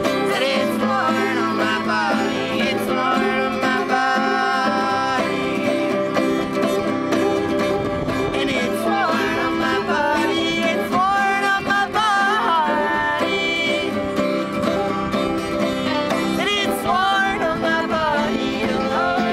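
Live acoustic string band playing: banjo, acoustic guitar and fiddle, with singing.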